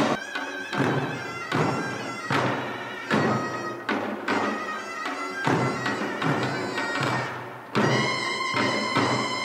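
Korean traditional band music: a reedy wind melody over drum strokes about every three-quarters of a second. Near the end a louder, steady high wind note comes in.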